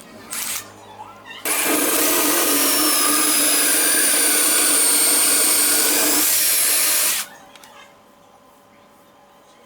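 An electric power tool runs with a steady whine for about six seconds, starting and stopping abruptly.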